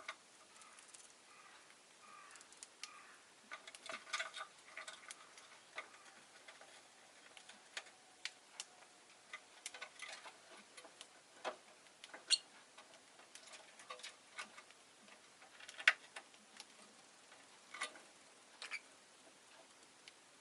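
Peach-faced lovebird making irregular sharp clicks and taps, with a few faint short chirps a few seconds in.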